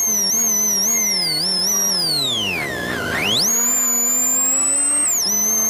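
Super1600 Suzuki Swift rally car's engine heard from inside the cockpit, with a high whine above it. The revs fall steadily for about three seconds while the car slows for a hairpin, then climb sharply as it accelerates out and hold steady, with a brief dip near the end.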